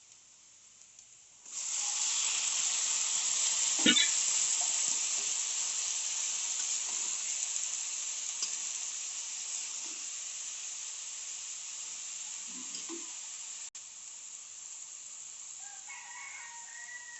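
Food tipped into hot oil in a cooking pan, sizzling loudly from about a second and a half in and slowly dying down, with one knock of the spatula against the pan about four seconds in. A rooster crows in the background near the end.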